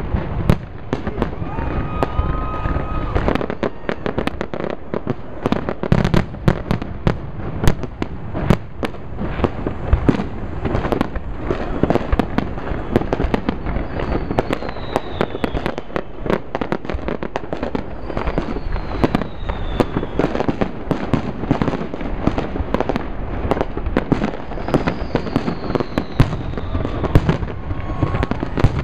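A fireworks display going off in a dense barrage: rapid, overlapping bangs and crackling bursts with hardly a gap. A few falling whistles come through about halfway in and again near the end.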